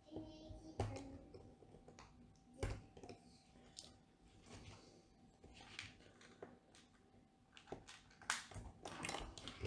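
Plastic LEGO bricks being handled and pressed together: a scattering of sharp clicks and light clatters, a few seconds apart, with a cluster of louder clicks near the end.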